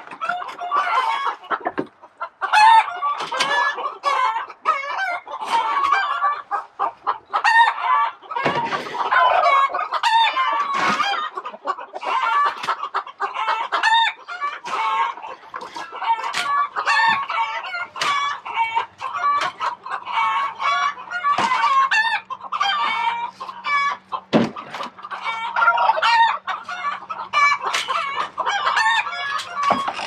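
A flock of chickens clucking continuously, many short calls overlapping.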